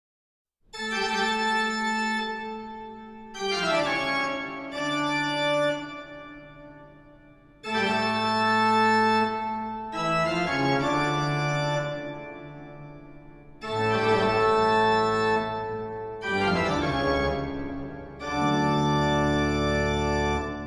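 Organ music of long held chords in three phrases, each starting loudly and fading away, with notes sliding down between chords.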